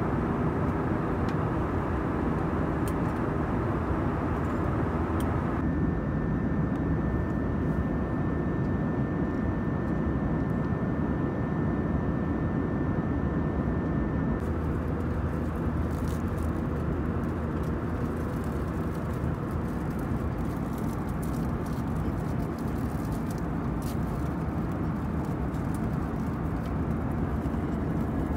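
Steady in-flight cabin noise of an Airbus A320-232, a low rumble of airflow and its IAE V2500 engines. A faint steady whine runs through the middle stretch.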